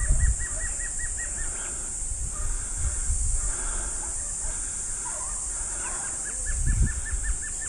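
Outdoor bush ambience: a steady high-pitched insect drone, with a rapid run of short repeated chirps (about seven a second) at the start and again near the end, over a low rumble.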